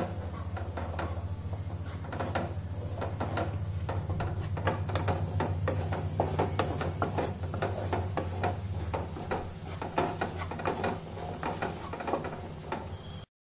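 Wooden spatula stirring and scraping onion-tomato masala in a nonstick kadhai, with many quick clicks and knocks of the spatula against the pan over a steady low hum. The sound cuts off suddenly near the end.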